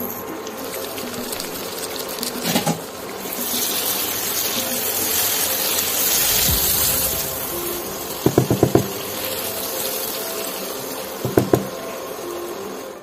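Egg curry sizzling and bubbling in a coated kadhai while it is stirred with a spatula, the hiss strongest in the middle. A quick run of spatula taps against the pan about eight seconds in, and two more near the end.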